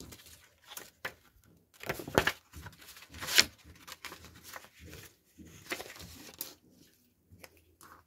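Paper rustling and crinkling as printed paper pages are folded and flipped by hand, in a string of short irregular scrapes, the loudest about two and three and a half seconds in.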